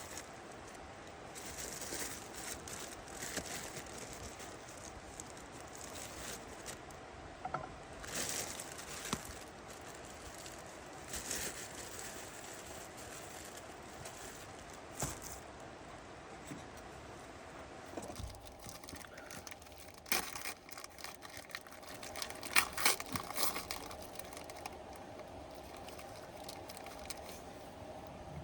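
Plastic food packaging crinkling and tearing as it is opened, with irregular scrapes and small knocks of handling, busiest near the end.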